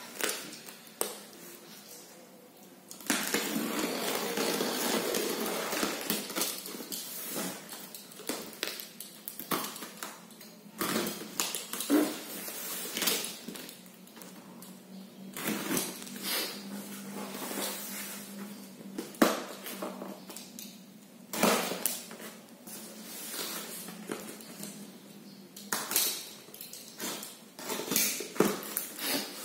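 A box cutter slicing through the plastic film wrapping and packing tape on a large cardboard shipping box, and the plastic being torn and pulled away. About three seconds in comes a continuous tearing noise lasting some three seconds; after that, scattered sharp clicks, scrapes and crackling rustles of plastic and cardboard.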